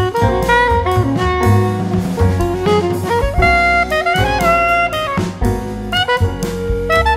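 Instrumental background music: a lead melody with sliding notes over a bass line and drums.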